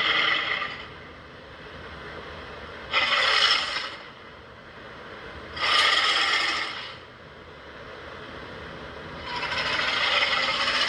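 Monster roar sound effects: a roar fading out just after the start, two short roars about three and six seconds in, and a longer roar starting near the end.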